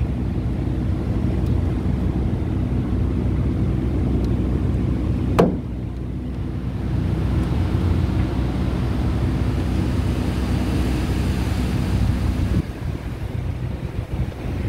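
Steady low mechanical rumble, with one short sharp click about five seconds in; the rumble drops a little near the end.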